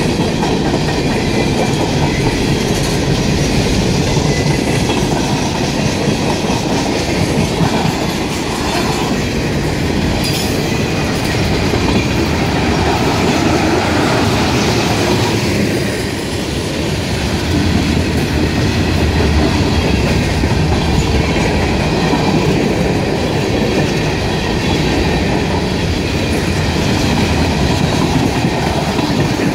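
Freight train cars rolling steadily past, their wheels clattering over the rail joints.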